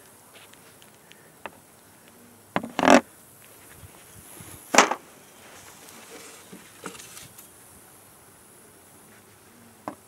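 Honey bees buzzing faintly around an opened hive, with a few sharp scrapes and knocks as a hive tool pries the wooden frames loose. The two loudest come about three and five seconds in.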